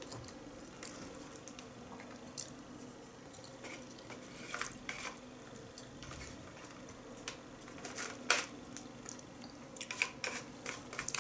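Quiet eating sounds: wooden chopsticks clicking and scraping against a dish as food is picked up, with soft wet chewing. The small clicks are scattered, a sharper one about eight seconds in and several close together near the end.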